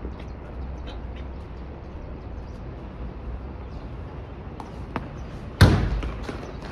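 Steady outdoor background noise, with one sharp knock about five and a half seconds in that dies away quickly.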